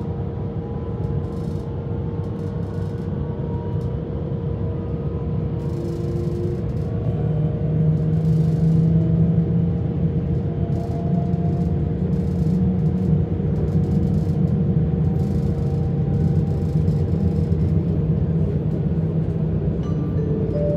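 Interior of a DB class 442 Talent 2 electric S-Bahn train on the move: a steady running rumble that grows louder about halfway through, with a faint electric motor whine slowly rising in pitch as the train picks up speed.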